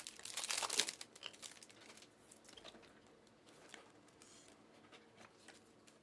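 Crinkling and tearing of a trading-card pack wrapper with cards being handled, densest in the first second, then fainter scattered rustles.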